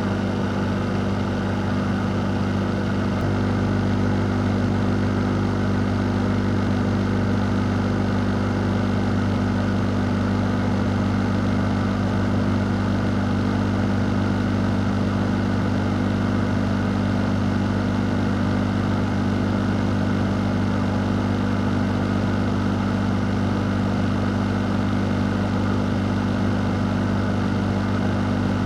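Fan running steadily: an even rush of moving air over a constant low hum, with no change in level.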